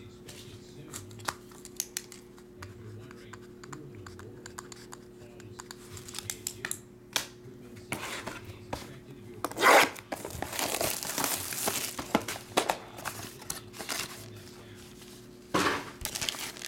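Trading-card box packaging and a foil pouch being torn open and crinkled by hand. There are light taps and clicks of handling, then a sharp rip about ten seconds in, a few seconds of crinkling, and another rip near the end.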